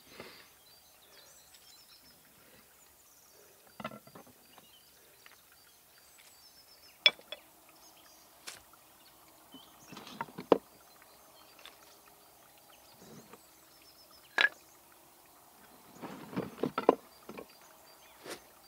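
Thin wooden boards and hand tools clacking and knocking as they are set down and arranged: a few sharp separate knocks, then a quick cluster of them near the end.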